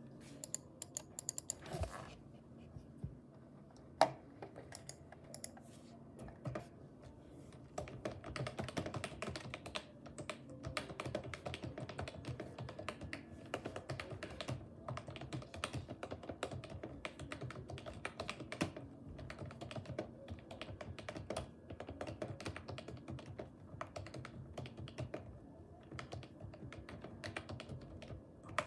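Typing on a Logitech G213 rubber-dome keyboard whose keys have been lubed. The key presses are scattered for the first several seconds, with one sharp, louder click about four seconds in. From about eight seconds on they become fast and continuous as both hands type.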